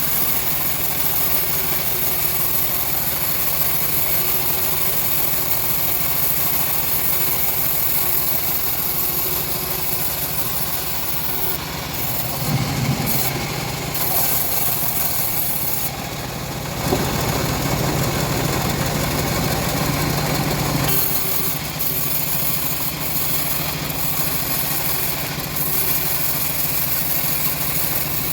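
Engine-driven homemade bandsaw mill running steadily while sawing teak, its sound growing heavier and louder for a few seconds past the middle as the blade takes more load.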